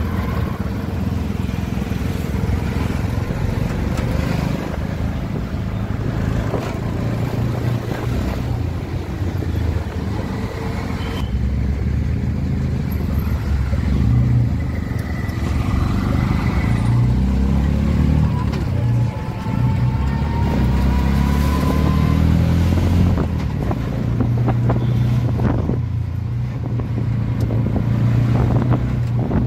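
Auto-rickshaw's engine running in city traffic, heard from inside the open cab, its pitch rising and falling as it speeds up and slows, over steady road noise.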